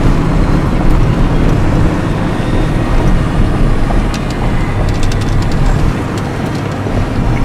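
Steady low rumble of engine and road noise inside a moving vehicle's cabin while driving. A few faint clicks come about four to five seconds in.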